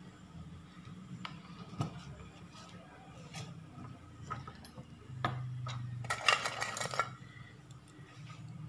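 Small metal hand tools clinking and rattling as they are handled on a workbench: a few light clicks, then a denser clattering rattle about six seconds in.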